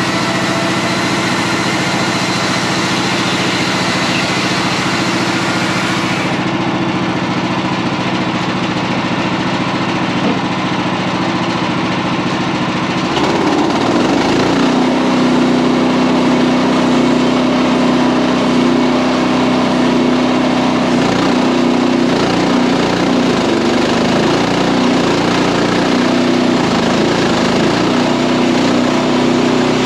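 The gas engine of a portable band sawmill running steadily. About 13 seconds in, its note changes to a louder, lower and rougher sound.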